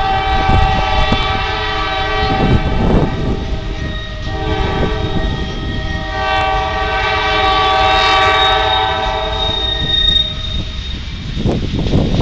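Norfolk Southern mixed freight train rolling past: railcar wheels rumbling and clattering over rail joints, while the locomotive's air horn sounds from up ahead in two long blasts, the second ending about ten seconds in. A thin, high wheel squeal comes in near the end.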